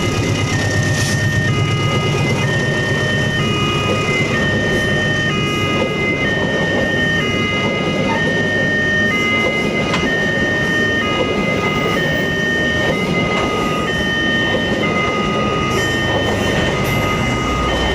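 Electronic level-crossing warning alarm sounding, switching back and forth between two tones about every half second, over the continuous rumble and clatter of a passing train's wagons.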